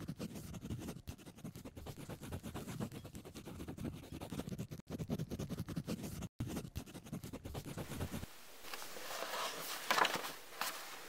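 Felt-tip marker scratching on paper in quick, irregular strokes. About eight seconds in the deeper scratching stops and a lighter rustle of paper takes over, with a few louder strokes.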